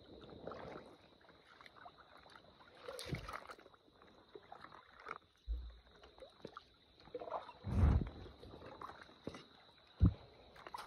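Splashing and sloshing in shallow water as someone wades and reaches in, with dull thumps and splashes about three seconds in, near eight seconds (the loudest) and at about ten seconds. A steady high tone runs underneath.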